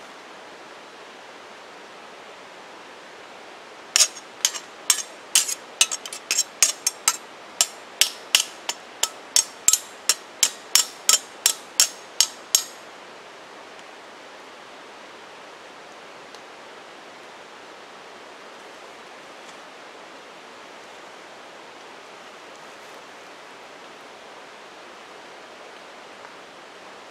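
About thirty sharp knocks in quick, uneven succession, starting about four seconds in and stopping after about nine seconds, over the steady rush of a fast-flowing creek.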